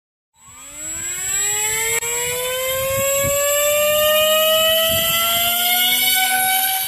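Mini Talon FPV plane's brushless electric motor and pusher propeller spooling up for a hand launch, starting about half a second in. Its whine rises steadily in pitch for about six seconds.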